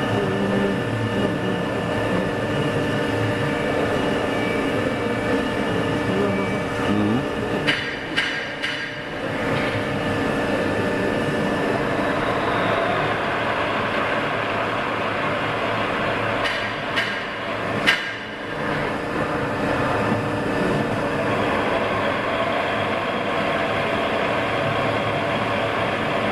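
Soraluce TA 20 A bed-type milling machine running with a steady mechanical hum made of several held tones, broken by a few sharp clicks about eight seconds in and again around seventeen to eighteen seconds.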